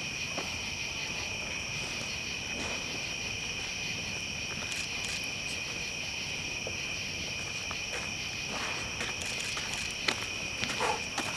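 Crickets singing in a steady, shrill night chorus, with scattered crackles and a sharper pop about ten seconds in from a large burning campfire.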